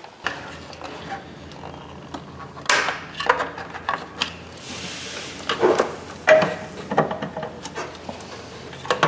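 Hard plastic cover in a car's engine bay being pulled and pried at by hand: scattered clicks and knocks of plastic against plastic and metal, with a brief soft hiss near the middle.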